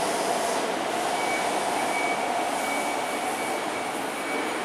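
Old-generation SMRT metro train running along an elevated viaduct: a steady rolling rumble with a faint thin high whine that comes in about a second in.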